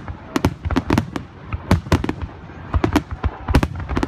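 Fireworks finale: a dense, rapid barrage of aerial shell bursts, several loud bangs a second, overlapping with one another.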